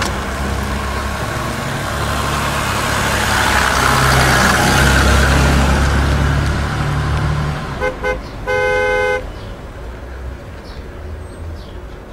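A Mercedes-Benz W116 S-Class saloon drives past: its engine and tyre noise swell, then fade. Near the end a car horn gives two short toots and then one longer blast.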